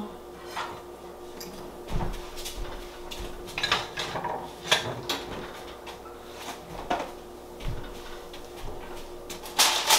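Kitchen clean-up sounds: scattered knocks and clatters of dishes, utensils and containers being moved around on a countertop and put away, about a dozen separate bumps over the stretch. A steady low hum runs underneath.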